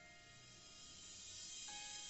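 Faint background music: a slow melody of held notes, changing to a new note near the end, over a soft hiss that swells in the middle.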